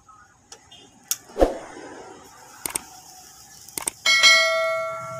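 A sharp knock, then a few paired clicks, then a bright bell ding about four seconds in that rings on and slowly fades: the click-and-bell sound effect of a YouTube subscribe-button animation.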